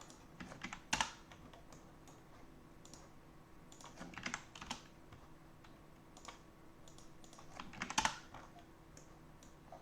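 Typing on a computer keyboard in scattered short runs: a few key clicks about a second in, a cluster around four to five seconds in, and another around eight seconds in, over a faint steady hum.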